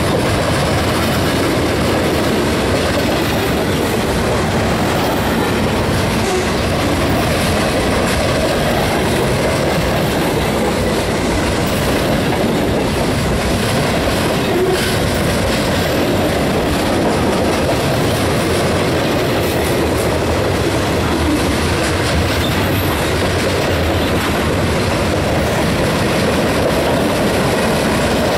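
Mixed freight cars (tank cars, boxcars and covered hoppers) rolling past close by: a steady, loud rumble of steel wheels on the rails, with scattered clicks over the rail joints.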